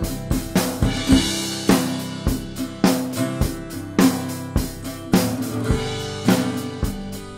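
Recorded drum kit, snare and bass drum, playing a steady beat of about one hit every 0.6 s, with a Harmony parlour acoustic guitar strumming chords alongside. The tracks are heard as recorded through the mic preamps of a Yamaha 1202 mixer.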